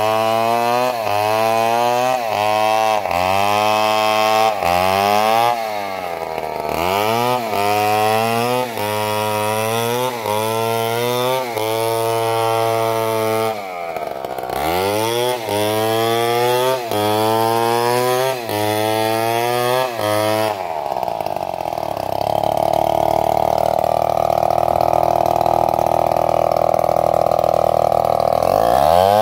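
Stihl chainsaw ripping lengthwise through a coconut palm trunk, its engine revving up and bogging down under load about once a second, with two brief drops toward idle. In the last third it runs at a steadier, lower pitch before revving up again at the end.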